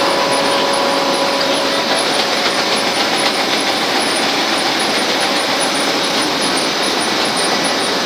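One-colour rotogravure printing machine for plastic-bag film running: a steady mechanical noise from its drive and rollers.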